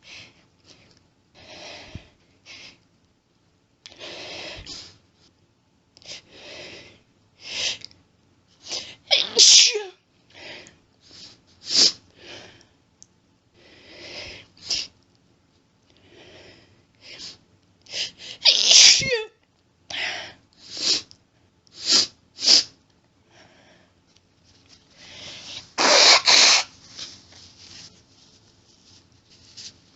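A woman's allergic sneezing fit: hitching in-breaths and sniffles building up to a series of sharp sneezes, some in rapid groups, the loudest about ten seconds in, near nineteen seconds and about twenty-six seconds in.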